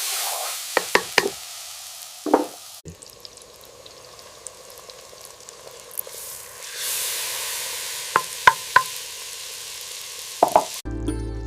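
Masala of ginger-garlic paste and chilies sizzling in oil in a pan while being stirred, the spatula clacking sharply against the pan in quick groups of strikes. The sizzle swells up and dies down. Music comes in near the end.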